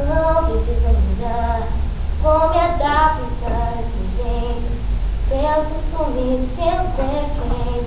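A single young voice singing a melody unaccompanied, in held notes that step up and down, as a singing-class student sings so the teacher can hear the timbre of the voice. A low steady hum runs underneath.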